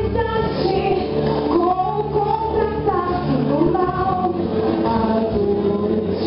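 A woman singing in Portuguese into a handheld microphone over a recorded backing track with steady low accompaniment notes.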